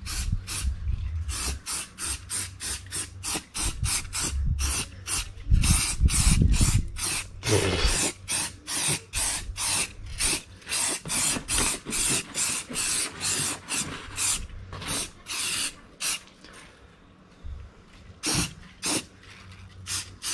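Aerosol can of rust converter sprayed in many short bursts, about two or three a second, onto bare rusty sheet steel. Near the end the spraying pauses for a couple of seconds, then the bursts start again.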